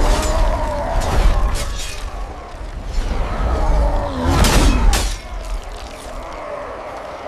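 Cinematic trailer sound design: a heavy deep booming rumble with sharp crashing hits, and a tone that slides downward about four seconds in. It eases off to a quieter rumble near the end.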